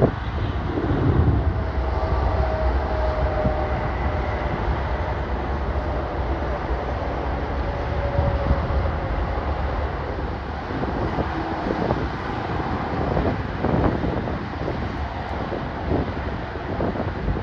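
Jet airliner engines rumbling during a takeoff or fly-by, with a faint whine that falls slowly in pitch over several seconds and an uneven, gusting roar in the second half.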